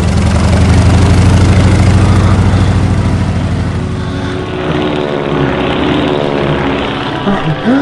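Biplane's engine and propeller running with a rapid pulsing beat, loudest over the first few seconds, then fading about four seconds in.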